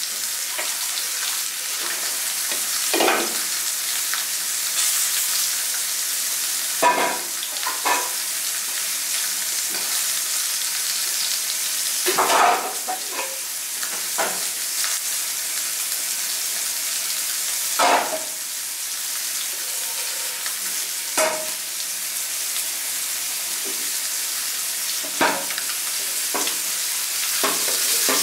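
Two flour-coated torpedo scad (chencaru) halves frying in hot oil in a pan: a steady sizzle with irregular louder spits and pops every few seconds.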